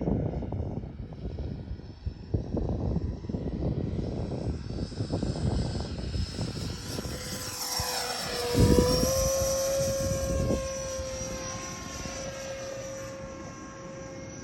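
Electric ducted fan of a model L-39 Albatros jet (90 mm Wemotec fan) whining as the plane flies past, its pitch falling as it passes about eight seconds in and then holding steady. Wind buffets the microphone heavily in the first half.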